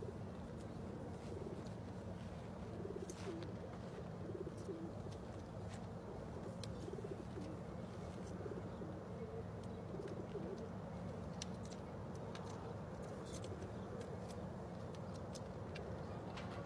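Racing pigeons packed in a crated transport trailer, cooing in a continuous low chorus of short repeated calls, with scattered light clicks.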